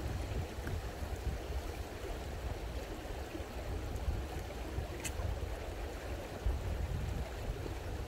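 Stream water flowing steadily, with a low rumble underneath and one short click about five seconds in.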